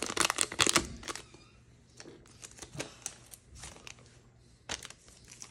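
Foil booster-pack wrapper crinkling as a stack of trading cards is slid out of it, loudest in the first second, then faint rustles and clicks of the cards being handled and shuffled, with a few sharper clicks near the end.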